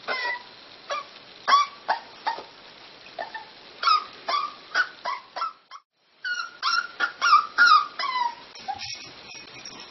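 Dog giving a rapid series of short yips and whimpers, with a brief break about six seconds in.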